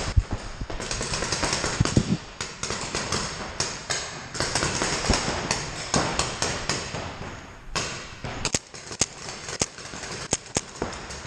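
Paintball markers firing: many sharp pops, singly and in quick strings of several shots.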